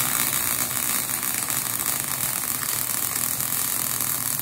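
MIG (gas metal arc) welder's arc burning steadily as a bead is laid on steel, a dense, even hiss. The welder is set way too hot for the job.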